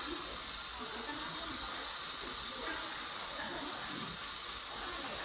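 Automatic laser welding machine running with a steady high hiss, with faint voices underneath.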